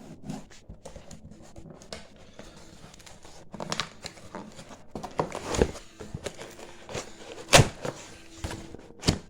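A cardboard box being opened and its packaging handled: irregular rustling, scraping and clicks, with sharp knocks about five and a half and seven and a half seconds in.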